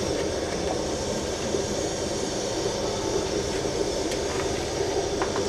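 Steady rushing hiss of a gas stove burner with a pot of rice, soya chunks and water boiling hard on it.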